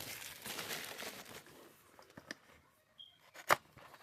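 Packaging being handled: a rustling that fades out over the first second and a half, then scattered light clicks and one sharp click about three and a half seconds in.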